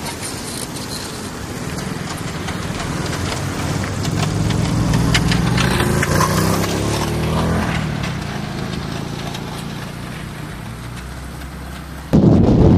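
A car engine running, growing louder to a peak about six seconds in and then fading. Near the end it cuts abruptly to wind buffeting the microphone.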